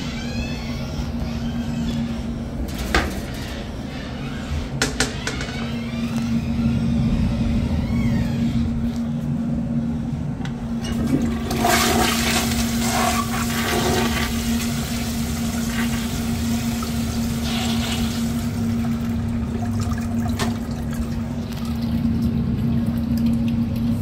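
VitrA toilet bowl flushing: two sharp clicks a few seconds in, then water rushing into the bowl, loudest around the middle, and running on as a steady flow.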